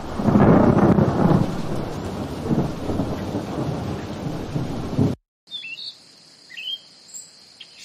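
Thunderstorm: a loud thunder rumble over heavy rain, strongest in the first second or two, cutting off abruptly about five seconds in. Then a few faint bird chirps over quiet ambience.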